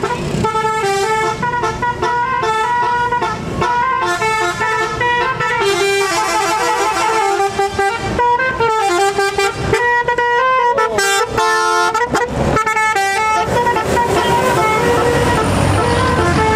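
Tour bus's multi-tone 'telolet basuri' musical horn playing a tune, its notes stepping quickly from pitch to pitch. Near the end the tune thins out under a steady rush of noise.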